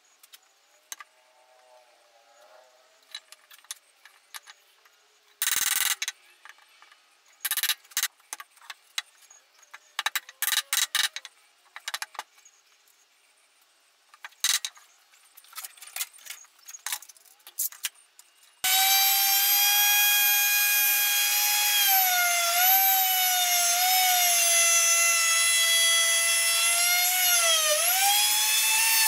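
Scattered clicks and knocks of wood and tools being handled, with two louder short noisy bursts, then about two-thirds of the way in a handheld electric router starts and runs with a loud high whine, its pitch dipping briefly twice as the bit bites into the Douglas fir frame it is cutting along.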